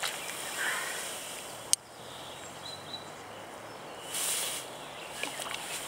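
Quiet riverside ambience while a rainbow trout is released by hand in the water, with a short soft splash about four seconds in. There is also a single sharp click a little under two seconds in.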